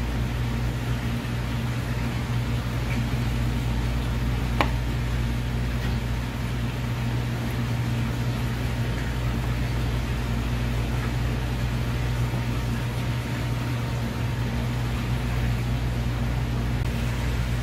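A steady low machine hum, with one sharp tick about four and a half seconds in.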